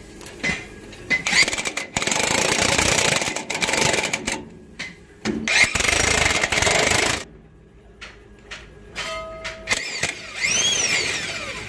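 Heavy impact wrench hammering nuts onto a spring hanger bracket on a truck's steel chassis frame, in two runs of a few seconds each with short pauses between.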